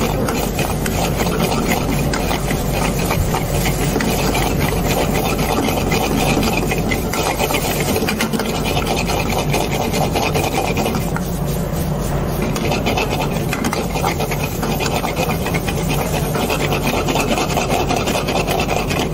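Steel ladle scraping and stirring mutton pieces around a steel wok in rapid, continuous strokes, over the steady rush of a high gas burner flame.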